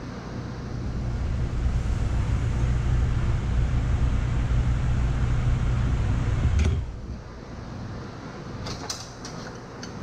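A steady, low motor hum swells over the first couple of seconds, holds, then cuts off suddenly with a click about two-thirds of the way in. A few light metallic clicks follow near the end.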